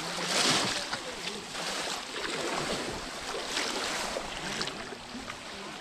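Water splashing and sloshing as many people wade through a muddy pond, stirring it up with bamboo polo fishing baskets, the loudest splashing about half a second in, with faint voices in the distance.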